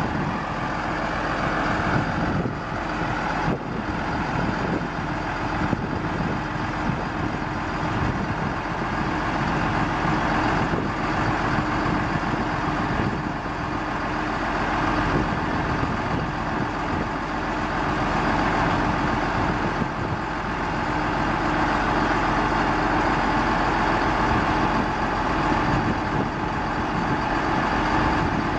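Cummins 5.9-litre inline-six diesel of a Sterling L7500 truck running steadily, driving its Chelsea PTO hydraulics as the scissor-lift dump bed rises. It is a steady hum with a few steady tones in it.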